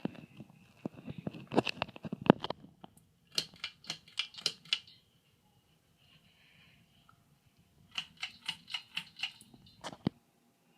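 Hampton Bay Minuet III ceiling fan running with a faint steady hum. Three bursts of rapid, irregular clicking and rattling play over it, which are the loudest sounds.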